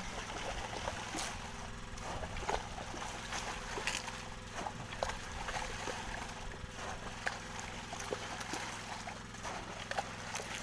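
Sea water splashing and sloshing irregularly against a boat's side as a man reaches in among squid massed and churning at the surface while a dip net is worked. A steady low hum runs underneath.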